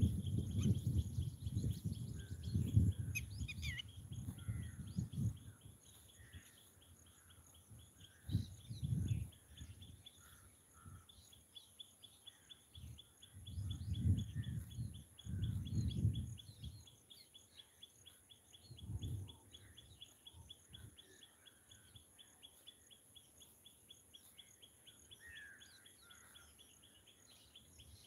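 Outdoor evening ambience: scattered bird chirps over a steady, fast, high insect trill, broken by several bursts of low rumbling noise, loudest in the first few seconds and again around the middle.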